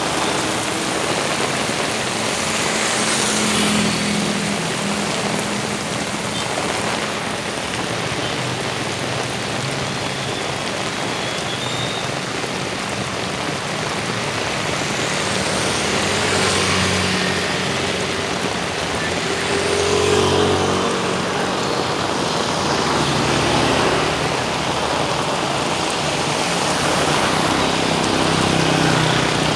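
Heavy rain pouring onto a flooded asphalt road, a steady loud hiss. A few times, motorbikes and other vehicles pass through the water, their engines and tyre swish swelling and fading over the rain.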